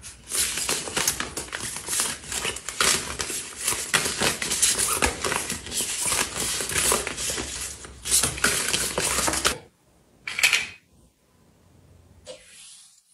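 Opened foil-laminated face-mask sachets crinkling and rustling as a handful of them is shuffled and fanned, a dense run of rapid crackles that stops after nearly ten seconds. One short rustle follows a moment later.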